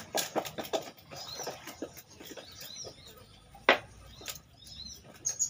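A knife scraping scales off a papuyu (climbing perch) fish, in short rasping strokes. There is a quick run of several strokes in the first second, a single louder stroke about two-thirds of the way through, and another quick run near the end.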